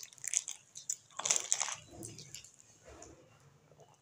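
Chewing a mouthful of beans and garri, with a clear plastic water sachet crinkling in the hand in a few short bursts.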